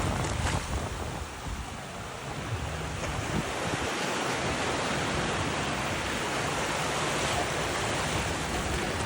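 Sea surf washing on a beach, with wind buffeting the microphone.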